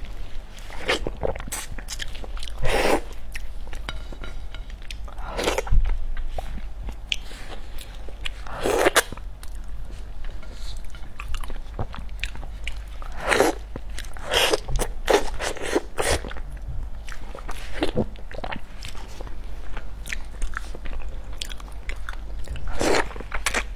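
Close-miked eating: a person chewing and biting food with wet smacks and crunches, irregular, every second or two.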